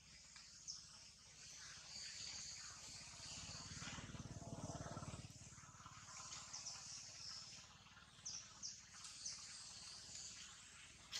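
Faint outdoor ambience: a steady high-pitched chorus with short chirps scattered through it, and a low rumble that swells about halfway in and then fades.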